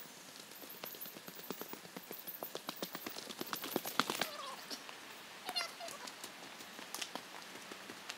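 Footsteps of a hiker on a dirt forest trail, a run of soft irregular taps and crunches. Two short falling calls from an animal come about four and five and a half seconds in.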